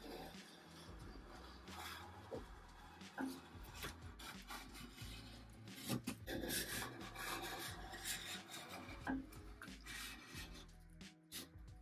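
Metal putty knife scraping stripper-softened paint off a solid mahogany dresser top, in irregular strokes of uneven loudness.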